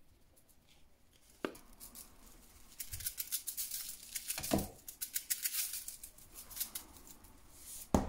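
Dry white powder shaken out of a plastic tub into a foil-lined bowl: a dense crackling patter of grains landing on the foil, with a couple of soft knocks from the tub. The tub is set down on the desk with a sharp knock at the end.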